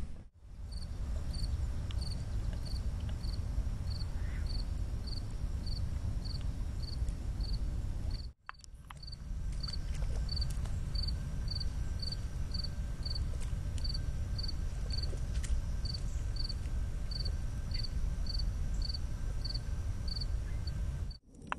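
An insect chirping in an even rhythm, about two to three chirps a second, over a low steady rumble. The sound drops out briefly about eight seconds in.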